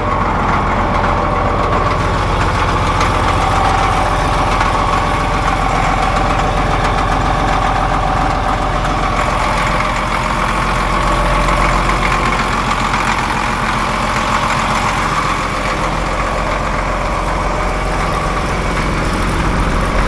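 Caterpillar D7F dozer's turbocharged six-cylinder diesel engine idling steadily.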